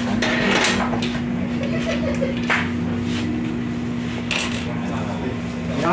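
Scattered light metallic clicks and clinks of small parts and tools being handled inside a large-format printer, over a steady hum.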